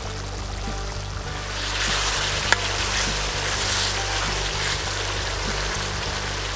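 Background music over stewed mutton and tomato sauce sizzling in a steel plough-disc pan. The sizzling grows louder a little under two seconds in, as a metal spoon stirs it. There is one sharp click about two and a half seconds in.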